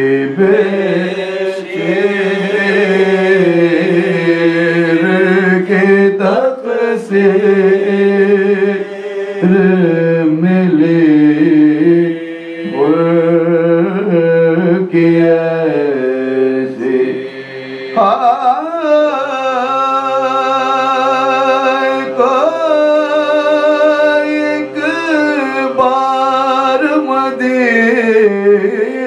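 Soz khwani: several men chanting a mournful Urdu lament without instruments, a lead voice carrying an ornamented melody over others holding long sustained notes, with pitch glides rising into new phrases.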